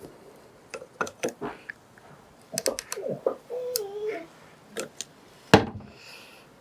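Metal motorcycle fork parts being handled and fitted by hand: a series of sharp clicks and light knocks, with one heavier knock near the end.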